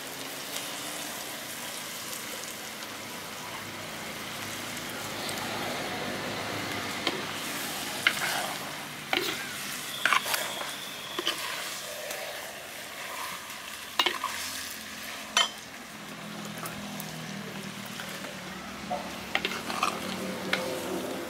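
Raw mutton pieces sizzling as they fry in oil in a clay pot, stirred with a steel ladle that scrapes and knocks against the pot several times.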